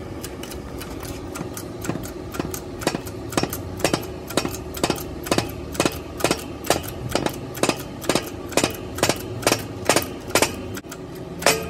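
Shop press driving a 2005 Toyota Highlander's front hub spindle into its new wheel bearing: a steady machine hum with rapid, regular clicking, about three clicks a second, starting about two seconds in and stopping near the end.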